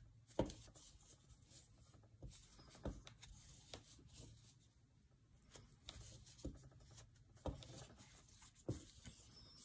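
Faint rubbing of thick yarn on a 7 mm crochet hook as double crochet stitches are worked, with a few soft, irregular clicks.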